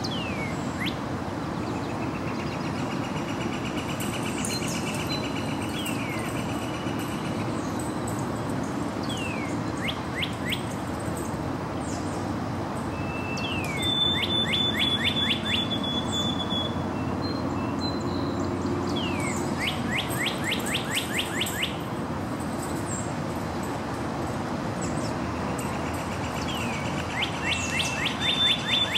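Male White-throated Sparrow singing its high, clear whistled song, with a long held whistle about halfway through and again near the end. Other birds sing fast runs of slurred notes around it, over a steady low background rumble.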